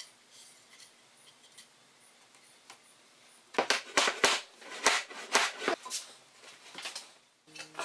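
Tongue-and-groove cherry flooring boards being pounded together on a plywood tabletop. A run of sharp knocks starts about halfway through, several coming in quick succession.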